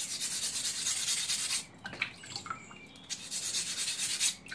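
A small rubber-backed diamond abrasive plate is scrubbed fast back and forth against the edge of a coarse corundum sharpening stone, grinding off the plate's sharp edge. It comes as two spells of quick, gritty rubbing strokes with a short pause and a few light clicks between them.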